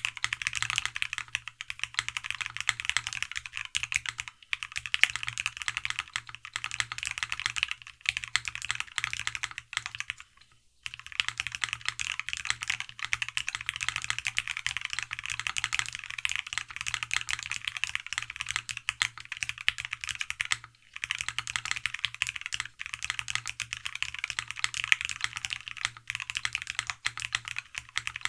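Continuous fast typing on a TGR Tomo mechanical keyboard fitted with NovelKeys x Alexotos Granite linear switches (milky nylon housings, POM stems): a dense run of keystrokes, broken by two short pauses, about ten and twenty-one seconds in.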